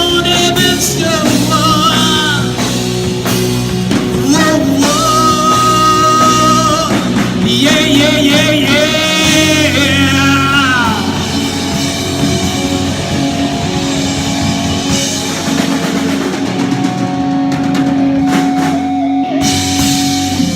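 Live rock band playing, with drums, bass and an electric guitar. For the first half a lead line bends and wavers in pitch. From about halfway the band holds long sustained notes, and the low end cuts out shortly before the end.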